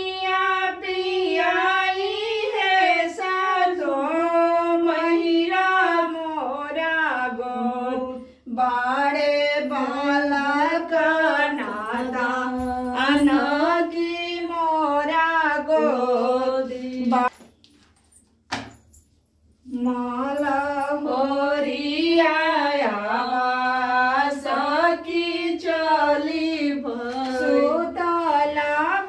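Women singing a traditional song unaccompanied, with held, gliding notes. The singing breaks off for about two seconds a little past the middle, then starts again.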